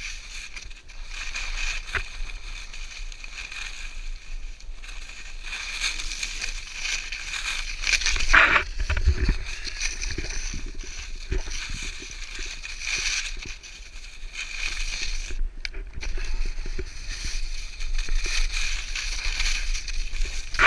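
Skis sliding and scraping over snow, the noise rising and falling with the turns, with wind rumbling on the pole-mounted GoPro's microphone; a louder bump with a thud about eight seconds in.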